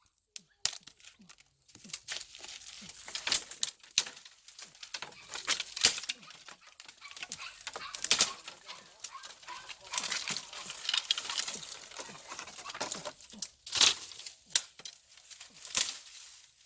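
Dry rustling and crinkling broken by many sharp clicks and snaps, irregular throughout.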